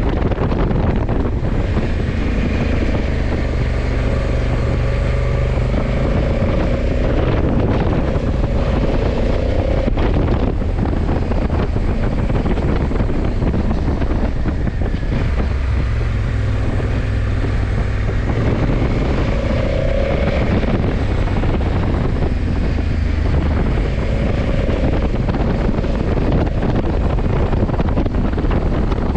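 Wind buffeting the microphone while riding a 2020 Honda CRF1100 Africa Twin Adventure Sports, its parallel-twin engine running underneath. The engine note grows stronger and shifts in pitch a few times.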